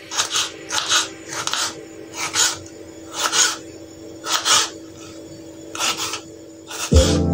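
Knife slicing a yellow bell pepper into strips on a wooden cutting board: about a dozen crisp cuts at uneven intervals, some in quick pairs. Music comes back in near the end.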